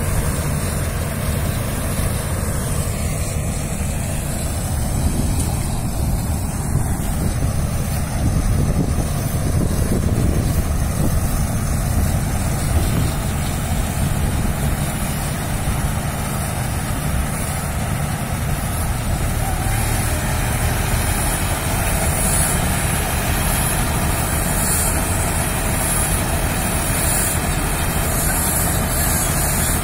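John Deere 5310 tractor's three-cylinder diesel engine running steadily under load, powering a tractor-mounted Dashmesh combine harvester as it cuts and threshes paddy.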